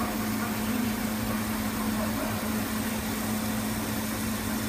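Fiber laser marking machine running while it marks: a steady electrical hum with a strong low tone and fan noise, unchanging throughout.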